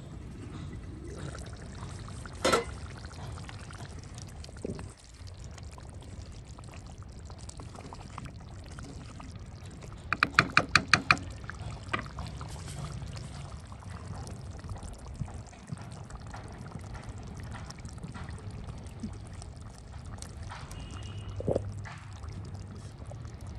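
Curry simmering in a clay pot on a gas stove: a steady low rush with liquid bubbling, a sharp knock about two and a half seconds in, and a quick run of about seven sharp clinks around ten seconds in.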